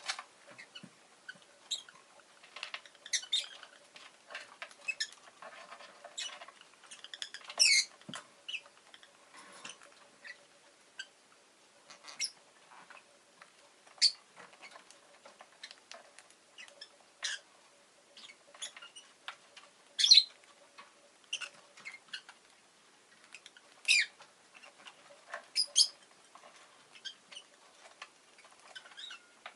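Rosy-faced lovebird giving short, sharp, high chirps at irregular intervals, with several louder single calls spread through and quieter chatter between.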